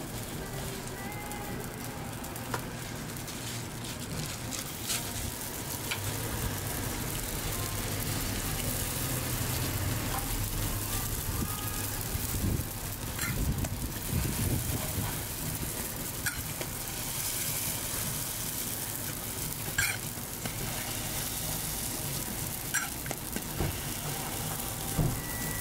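Hotteok frying in oil on a griddle: a steady sizzle with a few sharp clicks scattered through it.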